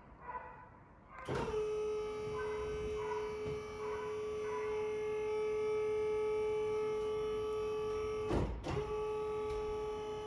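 Hydraulic pump of a boat's lowerable swim platform starting about a second in and running with a steady whine as it moves the platform arms. Near the end it breaks off briefly with a knock, then runs on.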